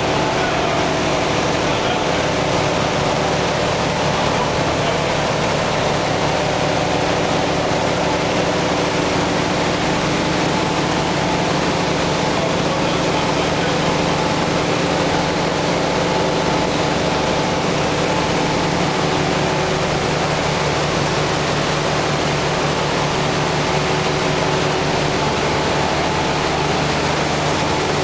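Ice plant refrigeration machinery running steadily: a constant machine hum with several held tones over an even rushing noise, unchanging throughout.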